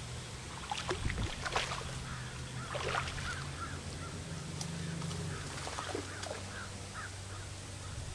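Birds calling in short, repeated chirps over a low steady hum, with a few scattered knocks in the first couple of seconds.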